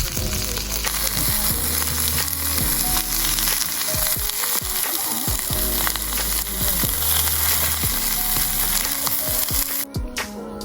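Sausages sizzling as they fry, a steady hiss heard over background music with slow, held bass notes. The sizzle cuts off suddenly near the end, leaving only the music.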